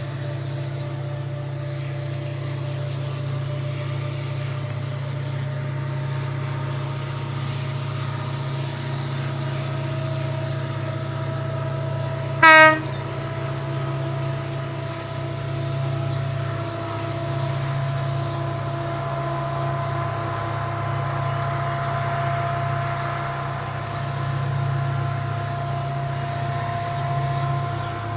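Diesel locomotive of a long coal train approaching: a steady low engine drone with a whine that slowly rises in pitch, and one short horn blast about halfway through.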